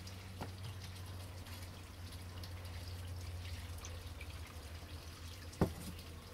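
Rainwater dripping slowly through a cloth filter bag into a cup, small faint drips throughout over a steady low hum. A single sharp knock about five and a half seconds in, as the cup is set back down on the workbench.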